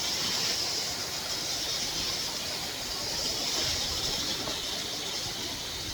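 Waterfall rushing close by: a steady, even hiss of falling water.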